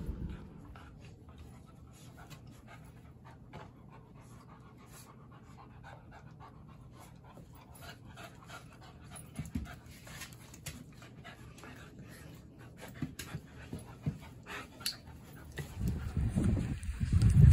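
Two puppies, an English Cocker Spaniel and an Australian Shepherd, panting as they play-wrestle, with many small clicks and scuffles. Near the end a loud rush of wind on the microphone rises.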